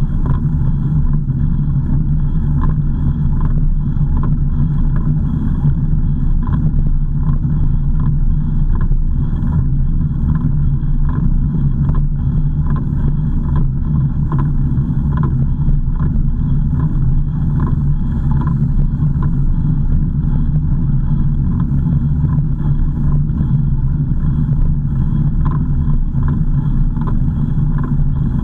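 A car driving along at a steady speed: a continuous low rumble of engine and road noise.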